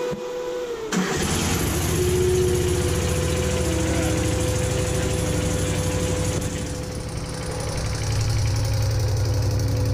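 Toro Dingo TX420 compact utility loader's engine running just after start-up, with a steady whine over it. It grows louder about a second in and again near the end, as the machine is run slowly forward on its drive to pull a new rubber track on.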